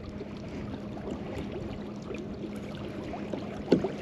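Water lapping and trickling against a kayak hull, with small scattered clicks, a faint steady hum and one short knock near the end.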